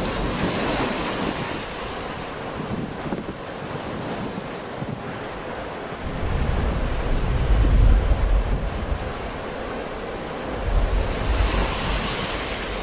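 Sea waves surging and washing on the shore, with the hiss of the wash swelling early on and again near the end. Wind buffets the microphone in low rumbling gusts about halfway through and again shortly after.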